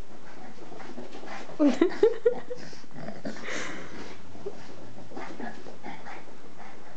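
Boston Terrier puppy giving four quick, short, pitched barks about a second and a half in, then rustling as it shakes and tugs a plush slipper on the carpet.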